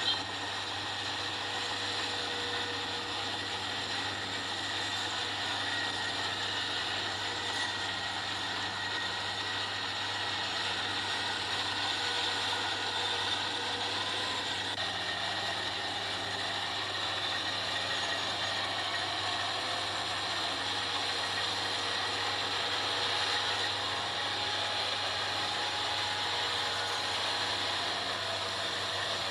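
Kubota combine harvester running steadily while harvesting rice, its engine and threshing machinery making a continuous mechanical noise with a low hum underneath. There is a brief louder knock right at the start.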